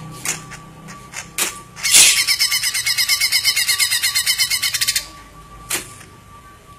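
Green leafbird (cucak ijo) singing: scattered sharp chip notes, then a loud, fast, even trill for about three seconds from about two seconds in, then a few more chips.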